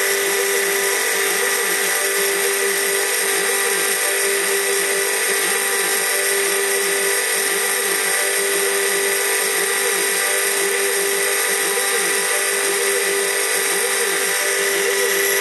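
CNC router spindle milling copper off a PCB blank with a fine end mill, a steady high whine. Under it, the machine's drive motors give short tones that rise and fall again and again as the cutter traces back and forth.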